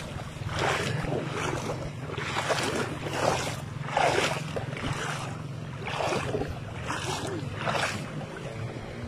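Shallow river water splashing over and over, about once a second, over a steady low hum.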